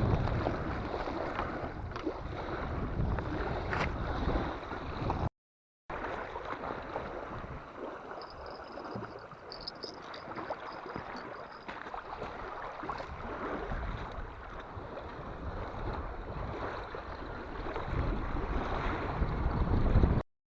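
Strong wind buffeting the microphone over waves splashing on the shore, gusting louder at the start and again near the end. The sound cuts out briefly twice.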